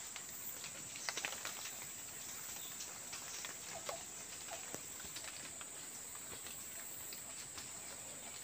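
Faint tropical-forest ambience: a steady high-pitched insect drone, with scattered faint ticks and a few short chirps.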